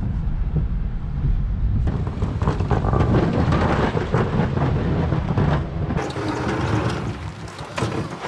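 Pickup truck engine and road noise, a steady low rumble heard from inside the cab while driving over snow. About two seconds in it cuts to a rougher outdoor noise that reaches much higher, with many small crackles, and it changes again to a thinner hiss about six seconds in.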